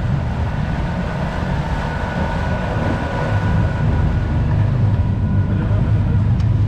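A sailing catamaran's inboard diesel engines running at low speed while manoeuvring: a steady low drone with a faint steady whine above it, growing a little louder about three seconds in.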